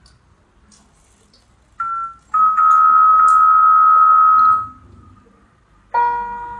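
Electronic keyboard sounding steady held tones: a short one about two seconds in, then a longer one held for about two seconds. A fuller sustained note begins near the end.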